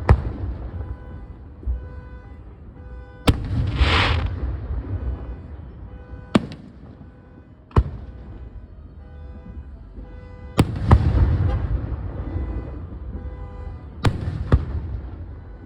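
Fireworks going off: sharp bangs every few seconds, several followed by long rolling booms, with a crackling hiss from a shell about four seconds in.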